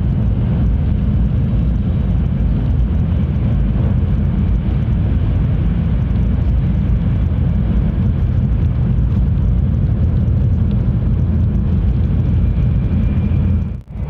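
Tohoku Shinkansen train running at speed: a steady, loud low rumble that cuts off abruptly near the end.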